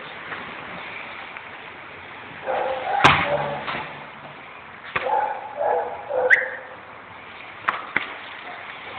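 A dog playing with a ball gives a few short whines and yips, one rising squeak near the middle. There is a sharp knock about three seconds in and a few lighter clicks later.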